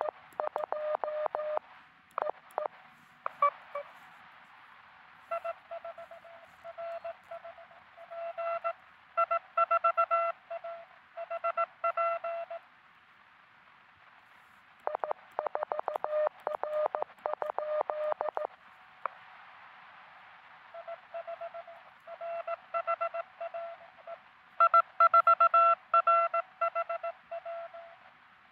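Morse code (CW) tones from a truSDX QRP transceiver, with receiver hiss between them. Runs of keyed code at one pitch alternate with runs at a slightly different pitch, a back-and-forth exchange of contacts on the air.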